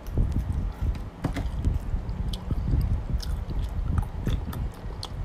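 Small plastic sauce sachets being cut open with scissors and handled: a scatter of short clicks and crinkles over low bumps.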